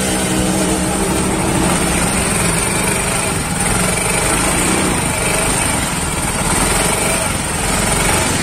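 A Yamaha Soul GT 125 scooter's single-cylinder four-stroke engine running steadily on the stand. The engine has just been rebuilt with freshly lapped valves, and it runs fairly smoothly.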